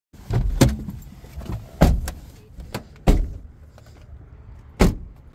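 Car door being opened from inside: the interior handle is pulled and the latch releases, followed by a series of sharp clicks and knocks, four loud ones a second or so apart, with lighter rattles between them as the door swings open and someone gets out.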